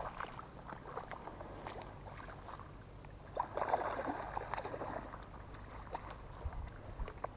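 Hooked peacock bass splashing and thrashing in shallow, weedy flood water as it is brought in toward the bank, with a short burst of splashing about three and a half seconds in.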